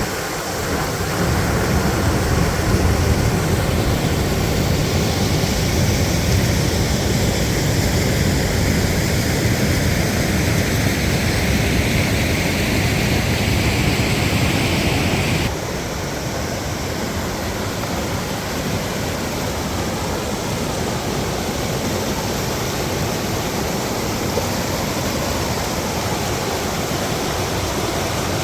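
Loud, steady rush of a waterfall running high with spring rain and meltwater. About halfway through the sound abruptly drops a little in level and carries on.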